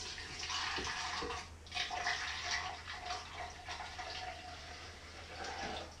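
Strained homemade canary seed milk being poured from a jug into a blender jar: a steady splashing pour that breaks off briefly about a second and a half in, then runs on.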